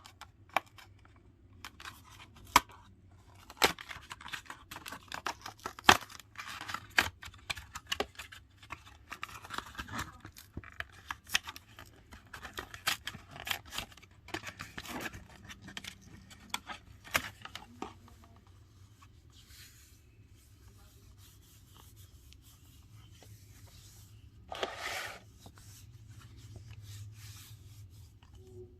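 Plastic packaging of a phone case being opened by hand, with many sharp crinkles, clicks and tearing through the first 18 seconds or so. Quieter handling follows, then one short rip about 25 seconds in.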